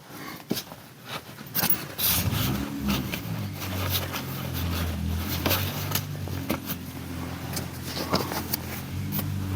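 Rustling, scraping and clicking as someone climbs out of a fabric garden hide. About two seconds in, a steady low hum sets in and runs underneath.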